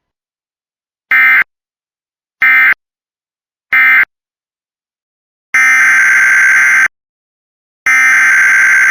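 Emergency Alert System SAME digital data bursts: three short buzzing bursts, the end-of-message code closing the flood warning, then after a pause two longer bursts, the header of the next alert.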